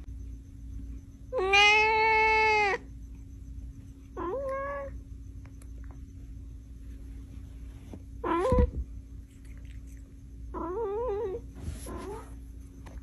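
A cat meowing five times with pauses between. The second meow, about one and a half seconds in, is the longest and loudest, and a shorter meow near the end wavers in pitch.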